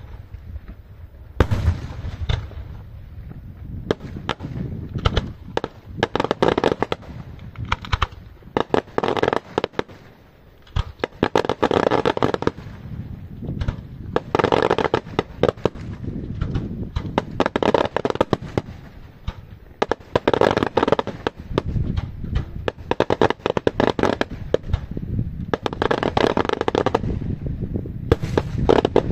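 Daytime aerial fireworks shells bursting in rapid strings of bangs and crackles. The bursts come in waves every two to three seconds.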